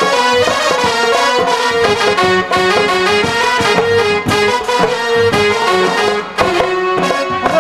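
Jatra band's instrumental interlude: a trumpet leads the tune in held notes over a steady beat.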